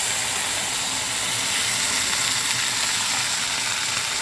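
Loud, steady sizzling and hissing from a wok of flat beans and eggplant frying in hot oil as a little water is poured in.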